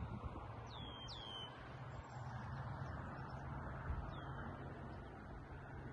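Songbird giving short, high, downslurred chirps: a pair about a second in and another around four seconds in. Behind them is a faint steady rush.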